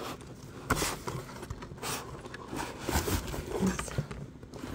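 Packing tape on a cardboard box being scraped and poked open with a thin pointed tool: irregular scratches and taps on the cardboard, with a few sharper knocks about a second in and near the middle.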